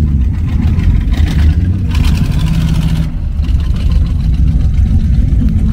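A car engine running with a strong, steady low exhaust rumble, with a hissier rush of higher noise for about two seconds, starting about a second in.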